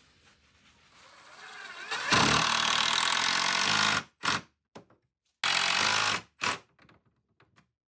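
Cordless driver sinking screws into a wooden shelf. It builds up, runs steadily for about two seconds and stops, gives two short bursts, then runs again for under a second, followed by a burst and a few light taps as the screw seats.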